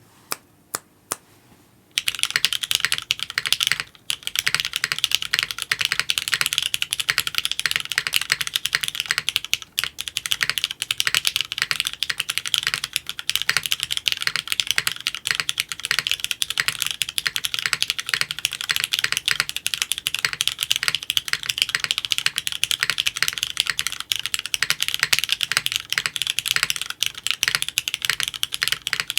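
Mechanical keyboard (Geonworks F2-60) with linear Cherry MX Black switches in an aluminium plate, typed on: a few single keystrokes at first, then fast continuous typing from about two seconds in, with a brief pause shortly after.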